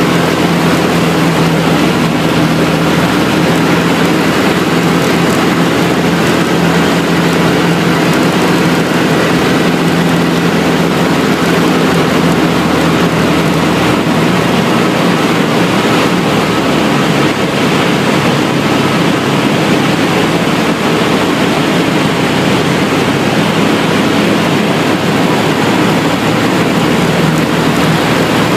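Single-engine light aircraft's piston engine and propeller running steadily in flight, heard from inside the cabin as a loud, even drone with a constant engine hum.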